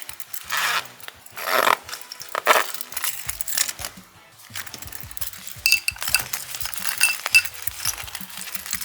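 Slime being worked and mixed in a bowl: three wet swishes in the first few seconds, then a run of small clicks and clinks from about halfway, over soft background music.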